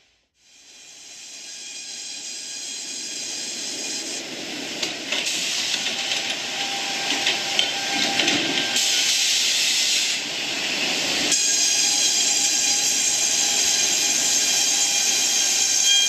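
Sawmill machinery running: a steady hissing noise with a faint steady whine, fading up from quiet over the first few seconds and changing abruptly a few times.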